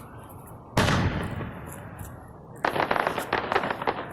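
Fireworks: an aerial shell bursts with a loud boom about a second in, its rumble fading away, then near the end a rapid run of crackling pops.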